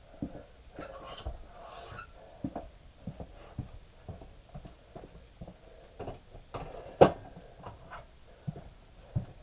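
Barbell bench press reps: breaths with scattered light knocks and clicks of the bar and bench, and one sharp clank about seven seconds in.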